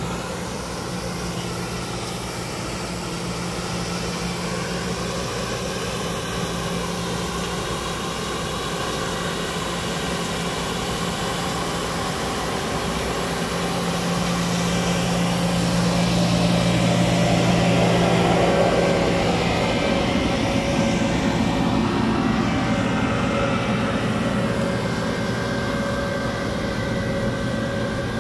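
Compact street sweeper's engine and suction fan running with a steady drone, louder about halfway through as the machine passes close, then easing off.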